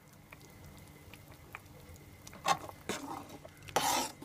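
A metal spoon stirring the sauce in a cooking pot: quiet at first, then a few short scrapes and knocks against the pot in the second half, the loudest just before the end.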